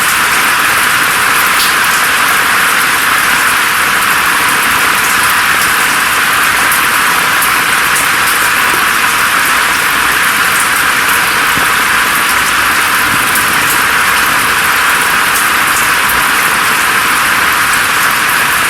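Steady, unbroken rainfall: a dense even hiss with faint scattered drop ticks and little low rumble.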